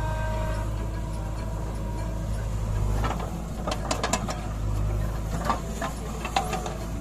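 JCB 3DX backhoe loader's diesel engine running steadily while the backhoe digs and swings. From about three seconds in, a series of irregular knocks and clatters comes as the bucket dumps soil and clods into the steel tractor trolley.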